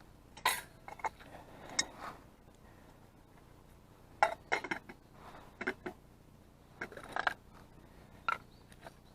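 Metal camp cookware of a Trangia stove set being handled: a series of short clinks and knocks, about eight in all, at irregular intervals.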